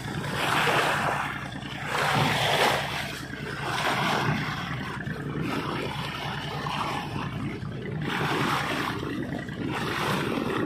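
A fishing launch's engine running with a steady low hum, under repeated rushes of water and wind noise every couple of seconds.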